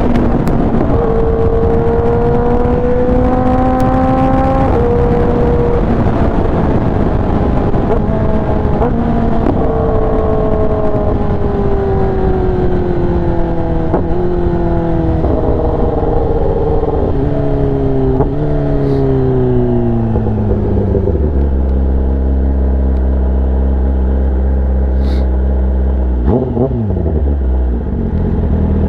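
Kawasaki ZX-10R's inline-four engine through an SC-Project exhaust, riding on the road. It pulls up in revs for a few seconds, then winds down with a run of rev-matched downshift blips. Near the end it settles to a steady idle, with one quick throttle blip just before the end.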